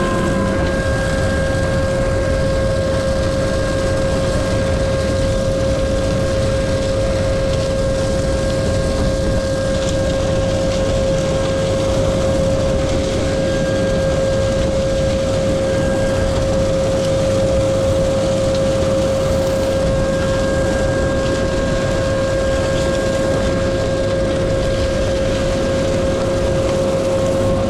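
Tractor engine running steadily, with a constant whine over its rumble.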